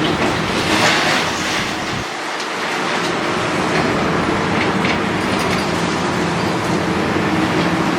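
Demolition excavator at work: its diesel engine running under a continuous mechanical clatter, with scattered sharp knocks.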